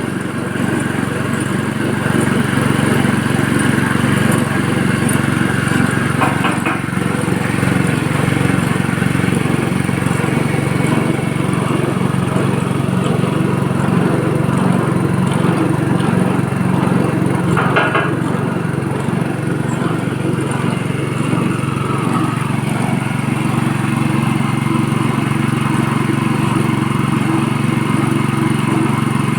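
Motor-driven coconut-milk press machine (type A22) running steadily with an even mechanical drone, a couple of faint clicks along the way.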